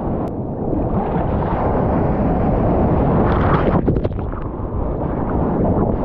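Ocean surf churning around a sea kayak as it is paddled through breaking whitewater, a steady loud rush of water. About three and a half seconds in, a paddle stroke and the boat punching through the white water throw up a burst of splashing spray.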